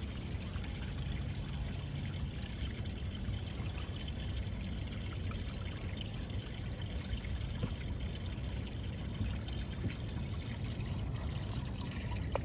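Steady rush of running water with a low rumble underneath.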